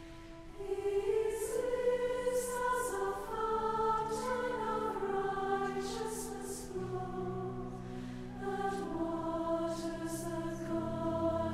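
Women's voices of a large choir singing a hymn arrangement in close harmony, swelling in under a second in. Lower sustained notes join beneath them about seven seconds in.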